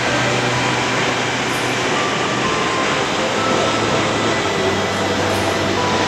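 Steady, loud rushing of Kegon Falls' water pouring down the cliff, an even roar with no breaks.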